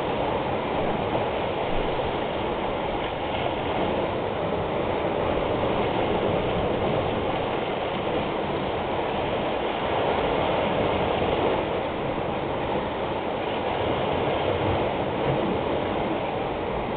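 Sea surf breaking and washing against a rocky shore: a steady rushing that swells a little now and then.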